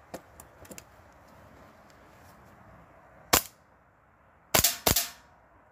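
Novritsch SSP5 gas blowback airsoft pistol on green gas fired through a chronograph: three sharp shots, one about three seconds in and then two in quick succession about a second later. A few light handling clicks come first.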